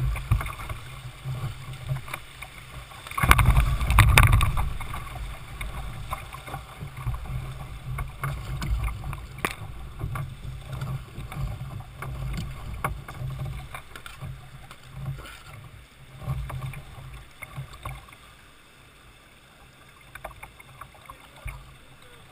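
River water splashing and rushing around a Jackson Coosa sit-on-top kayak as it runs through a rocky riffle, with a loud surge of splashing about three to four seconds in. Then come scattered paddle splashes and drips, fading quieter as the kayak glides into calm water.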